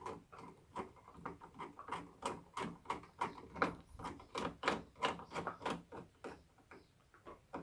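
A crosshead screwdriver driving the retaining screw of a euro cylinder lock into a UPVC door's edge: a run of short metallic clicks and scrapes, several a second, in irregular strokes.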